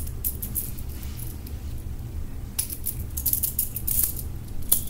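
Light clicks and rattles of small hard parts being handled, irregular and scattered, over a low rumble of handling noise.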